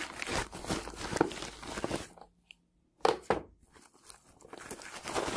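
Crinkling and rustling of a plastic mailer bag and plastic film wrap as a wrapped hard-shell laptop case is pulled out of it. It stops for a moment about two seconds in, then comes back as a short burst and softer rustling.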